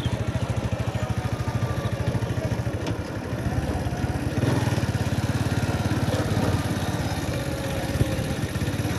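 Motorcycle engine running at low road speed, heard from the rider's seat, with an even, rapid exhaust pulse. It picks up slightly about four and a half seconds in, and there is one short knock near the end.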